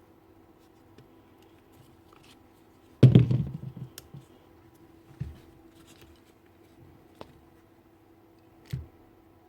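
Knocks and clunks of a power tool being handled and taken apart on a bench: one loud thunk about three seconds in, then a few lighter knocks and clicks.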